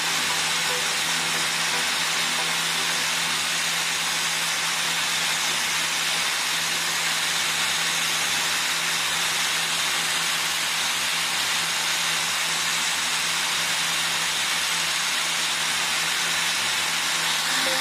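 DeWalt angle grinder running steadily with a steel rod held against its disc, grinding a point onto the rod: a constant hissing grind of metal over the grinder motor's hum.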